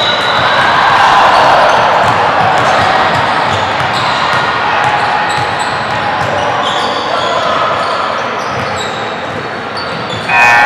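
Game sounds of indoor basketball: sneakers squeaking on the court and players calling out, in a hall with an echo. A sudden loud shout comes near the end.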